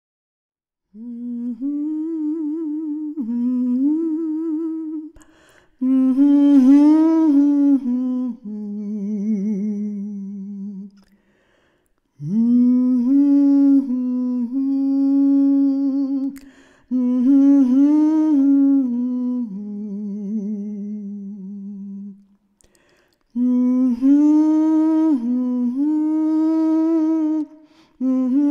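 A single voice humming a slow, wordless melody, unaccompanied, in phrases of a few seconds with short breaks between them.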